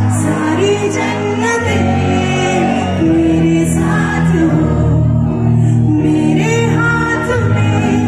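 A woman singing a Bollywood song live into a microphone, backed by a band, holding some long notes.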